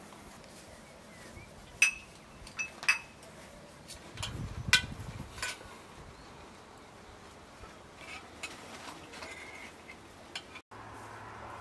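Ceramic plates, bowls and a metal serving spoon clinking as dishes are set down and food is served: a handful of sharp, briefly ringing clinks about two to five seconds in, then a few fainter ones.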